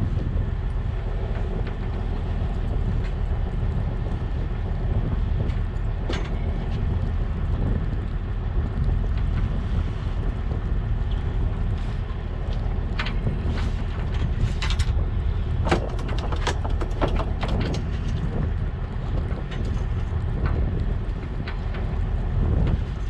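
Fishing boat's engine running with a steady low hum. A cluster of short clicks and taps comes about two-thirds of the way through.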